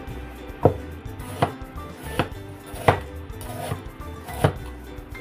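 Kitchen knife chopping bitter melon on a wooden cutting board: six sharp chops, about one every three quarters of a second, the last one or two lighter.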